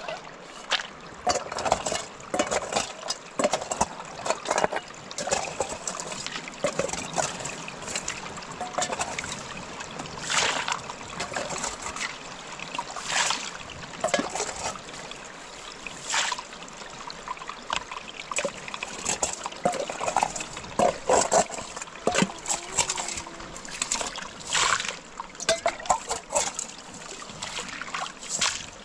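Water bailed out of a small muddy rock pool with a metal bowl: repeated scoops and pours, splashing and trickling at irregular intervals.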